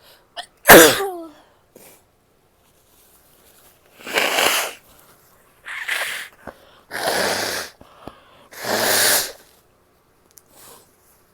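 A woman sneezes once, loudly and suddenly, and her voice falls away at the end of it. About three seconds later come four long, breathy bursts of air, a second or two apart.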